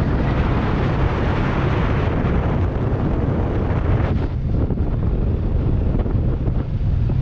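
Kawasaki Versys 650 parallel-twin engine running steadily under way, with wind rushing over the microphone; the wind rush eases about four seconds in.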